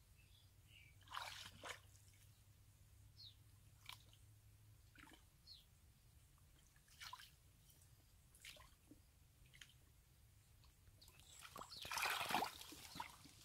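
Hands groping in shallow muddy water and soft mud, making faint scattered squelches and small splashes. Near the end there is louder squelching as feet step through the wet mud.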